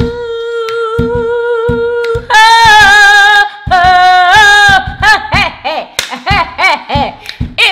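A woman singing a cappella, holding one long high note for about two seconds, then moving through a few more notes and ending on short choppy syllables, over a steady beat of low thumps.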